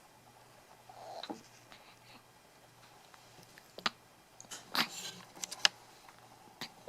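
Hiccups: a few short, sharp hiccups with quiet gaps of a second or more between them, the loudest about five seconds in.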